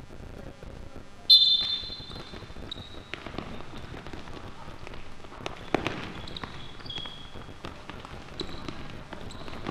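A referee's whistle blown sharply just over a second in, the loudest sound, followed by shorter high whistle-like tones, sharp knocks of the ball and distant players' voices.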